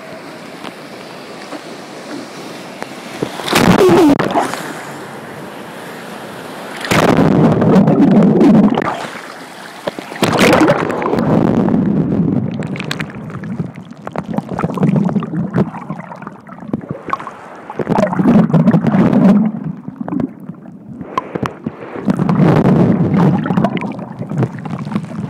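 Sea waves breaking and washing over a phone's microphone held at the water's surface: loud sloshing, muffled gurgling surges every three to four seconds, with a couple of sharp knocks of water striking the phone.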